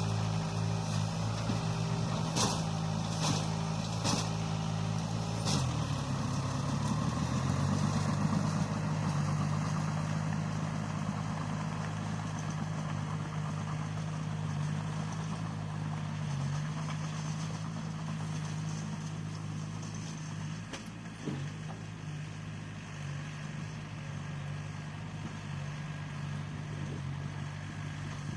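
Bulldozer's diesel engine running steadily, with four sharp metallic knocks in the first several seconds. The engine's pitch dips briefly about six seconds in, then steadies again.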